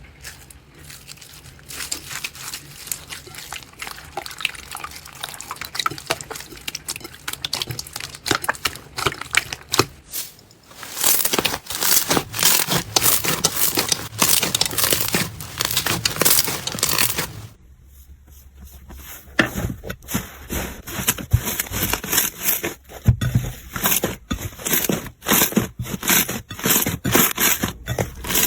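Slime being handled, crackling and crunching, in a few separate clips: a quieter stretch, then a louder, denser crackling from about ten seconds in, then after a short break a run of separate sharp clicks and pops.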